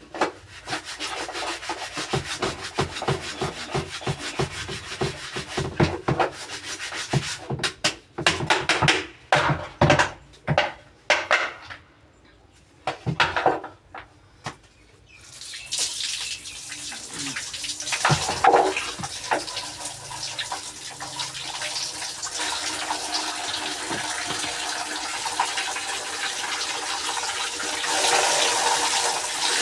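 Rapid scrubbing strokes on a dirty washing-machine part for about twelve seconds, then a short pause. About halfway through, water starts running steadily.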